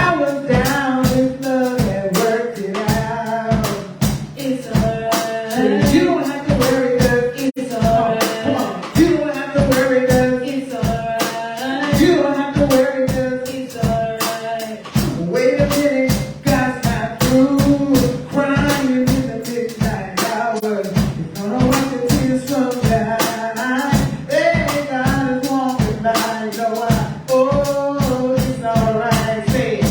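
Church praise music: voices singing over a band with a steady drum beat.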